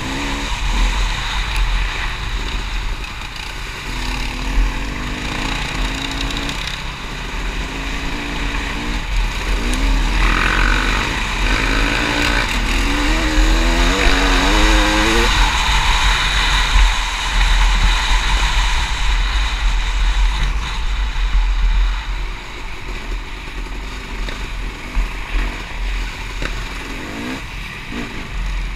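Off-road vehicle engine running under way on a dirt trail, with heavy wind rumble on the microphone. Near the middle the engine pitch climbs and drops in steps as it is revved through the gears.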